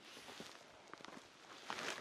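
Faint footsteps and trekking-pole plants on a packed snow trail, with a few light ticks in the second half.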